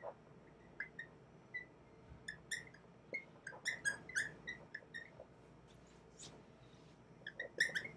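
Dry-erase marker squeaking on a whiteboard while writing: many short, high chirps at an irregular pace, thickest around the middle.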